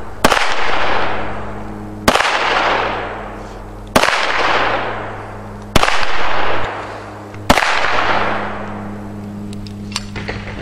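Five gunshots fired one at a time at a steady pace, about one every two seconds, each echoing and dying away slowly. A small click follows near the end.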